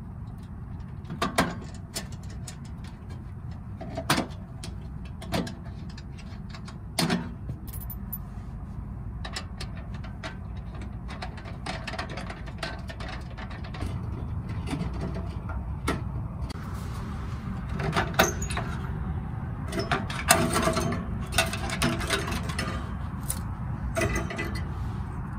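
Metal knocks and clanks from a homemade sheet-metal wood stove as its parts are fitted and its firebox door is handled: a few separate knocks at first, then a busier run of clatter near the end, over a steady low rumble that grows louder in the second half.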